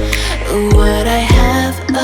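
Background music with a beat: deep bass-drum hits that drop in pitch under sustained melody notes.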